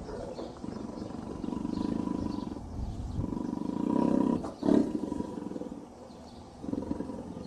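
Big cat roaring: a series of low, rumbling roars, with a sharper, louder roar about four and a half seconds in.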